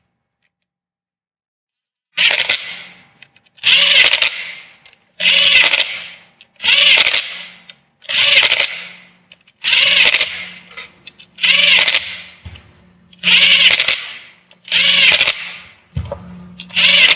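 Cordless drill on its lowest clutch setting running down the 8 mm bus-bar nuts of a Prius NiMH hybrid battery, in about ten short bursts, roughly one every second and a half, starting about two seconds in.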